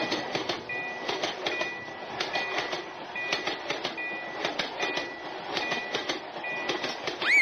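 Japanese railroad crossing warning bell ringing its repeated 'kan kan' tone, about four strokes every three seconds, over the rumble and clatter of a passing train. A short swooping tone rises and falls right at the end.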